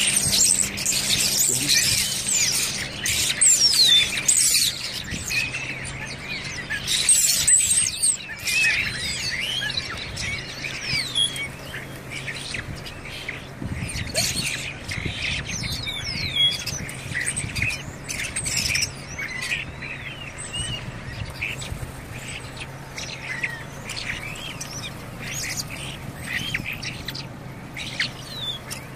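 A flock of common starlings chattering: a dense mix of chirps, whistles and squawks, busiest and loudest in the first eight seconds or so.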